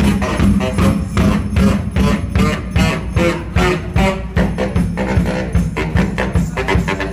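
Live saxophone and drums playing together: a fast, steady beat on a bass drum and cymbals under changing saxophone notes.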